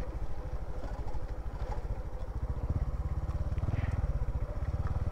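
Motorcycle engine running at low speed, a steady low pulsing exhaust beat.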